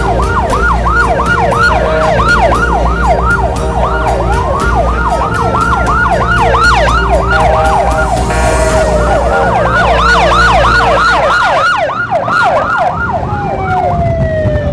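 Police motorcycle sirens sounding together: a fast yelp of about three rising-and-falling sweeps a second over a slower wail. Underneath is the low rumble of motorcycle engines, which drops away about twelve seconds in.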